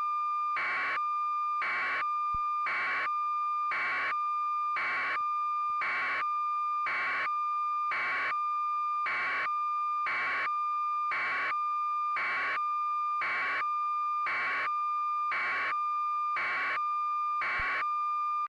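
Steady high electronic tone with a short hissing pulse repeating about once a second, a synthetic beep-like signal.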